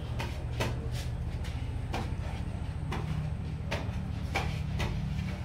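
Eatery background: a steady low hum with about seven sharp clicks and knocks at irregular intervals.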